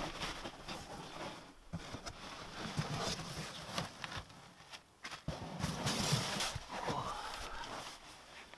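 Rustling and crinkling of a ground sheet and sleeping mat being handled and laid out, with scattered light knocks and shuffles. The rustle is loudest about six seconds in.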